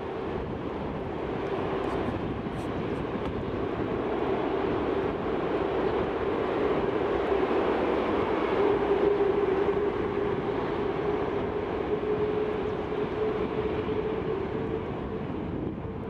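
Airbus A380 airliner's four Rolls-Royce Trent 900 turbofans running as the aircraft taxis and turns onto the runway: a steady jet rumble with a humming tone that rises slightly in pitch, loudest about halfway through and easing as it moves away.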